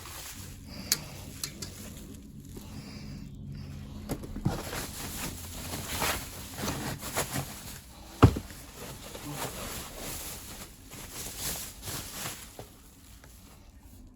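Handling noises while unpacking an electric guitar: scattered rustles, clicks and knocks, with one sharp thump a little past the middle.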